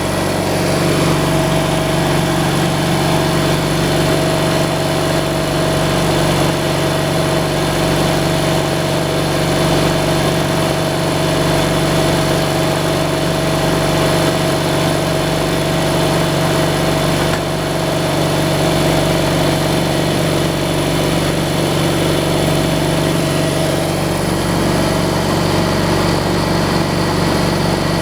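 Sawmill engine running steadily, with a steady high whine over it that stops about four seconds before the end.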